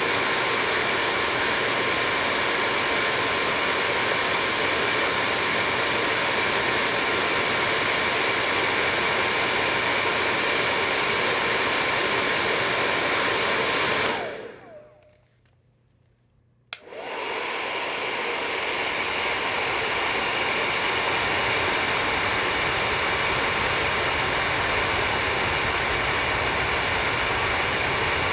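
Hair dryer blowing with a steady rushing noise and a faint whine, switched off about 14 seconds in so the motor winds down to near silence, then switched back on about two seconds later and running steadily again.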